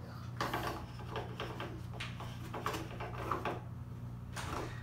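Irregular plastic clicks and knocks as a child's hands turn a large plastic bolt in the plastic side panel of a toddler slide. A steady low hum runs underneath.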